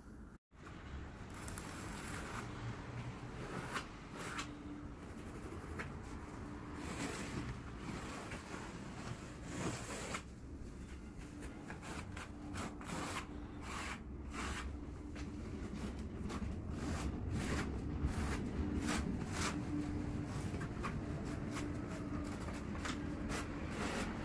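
Rustling, rubbing and light clicks of hands working mosaic tile sections across a table, many short sounds in quick succession. The sound drops out briefly about half a second in.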